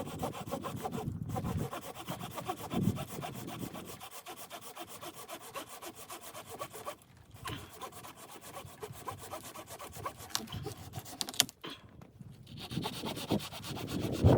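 Wood being cut with a hand saw, a steady run of rasping strokes with a couple of brief pauses.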